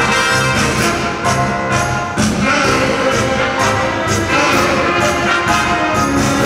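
Orchestral ballroom tango music with a steady beat of about two a second.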